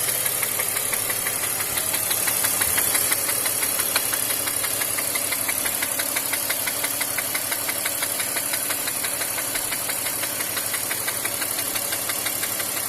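BMW M54 inline-six petrol engine in an X5 E53 running steadily with a fast, regular metallic knock. The owner takes the knock for a worn connecting-rod bearing (rod knock).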